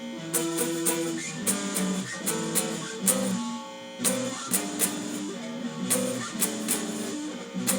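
Guitar playing a sequence of chords, with sharp, evenly spaced strokes and the chords changing every second or so.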